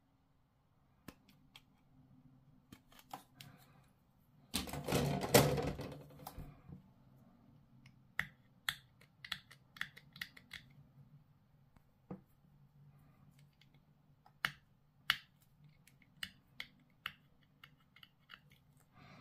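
Plastic miniature parts being clipped off a plastic sprue with sprue cutters and handled: a scatter of short sharp clicks and snips, coming thick and fast in the second half. About four and a half seconds in, a louder rustling handling noise lasts a second and a half.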